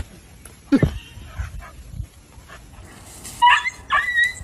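A dog whining in short, high-pitched yips that begin about three and a half seconds in, after one short low sound, falling in pitch, just under a second in.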